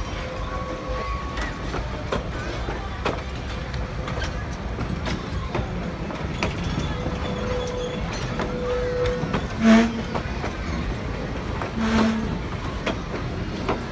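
Passenger coaches rolling past at low speed: a steady rumble with the wheels clicking over the rail joints, and two louder knocks about two seconds apart near the end.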